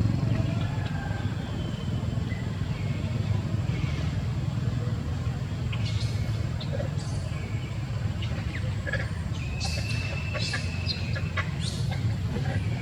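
A steady low rumble, with scattered short high chirps and squeaks from about six seconds in, including one longer held high note near the ten-second mark.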